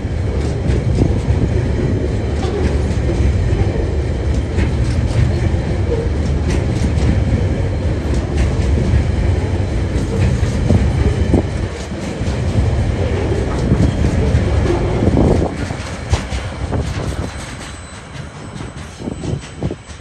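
TasRail freight train wagons rolling past at about 30 km/h, a heavy low rumble with wheels clicking over rail joints. About two-thirds of the way through the sound swells briefly, then falls away and fades as the train moves off.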